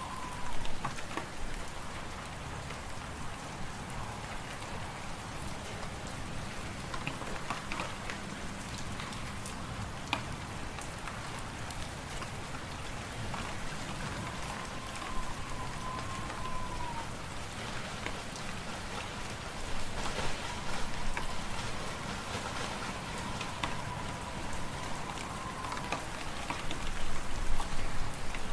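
Wood fire crackling in a fireplace: a steady rush of noise with scattered sharp pops, and a faint wavering whistle of wind that comes and goes.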